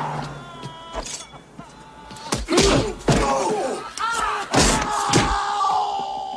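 Movie fight sound effects: a series of hard punch and body impacts, most of them bunched in the middle seconds, mixed with men's grunts and cries.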